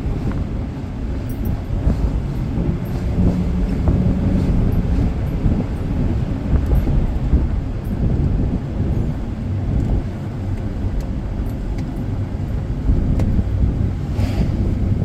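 Car interior noise while driving: a steady low road and engine rumble, with a short hiss near the end.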